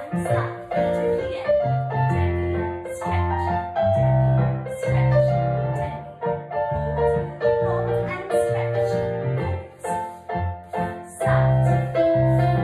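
Recorded piano accompaniment for ballet barre exercises (pliés and tendus), playing a melody over held chords.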